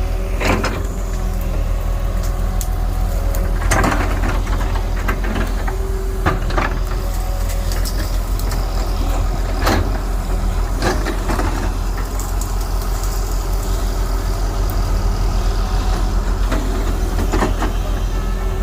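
Diesel engine of heavy earthmoving machinery running steadily, with sharp metallic clanks and knocks every few seconds.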